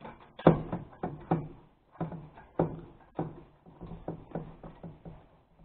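About a dozen sharp clicks and knocks at uneven intervals: a hand tool working on a twin-tub washing machine's spin tub as the last screw is driven in.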